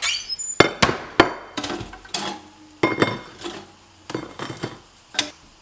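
A series of about nine sharp knocks and clinks, unevenly spaced, as hard objects are handled and set down on a hard surface.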